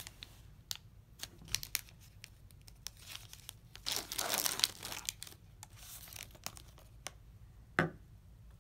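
Paper-and-plastic syringe peel pack being handled and peeled open: scattered light crinkles and ticks, then a longer stretch of crinkling and tearing about four seconds in as the wrapper is pulled apart. One sharp click near the end.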